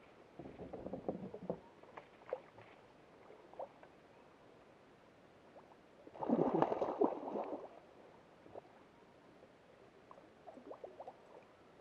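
Water sloshing and gurgling around a kayak, with scattered small knocks and a louder gurgling slosh about six seconds in.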